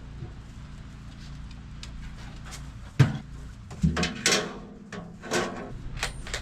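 A sharp knock about three seconds in, then several short rustling, scraping bursts as wood shavings for chicken bedding are handled and tipped out of their bag into the coop.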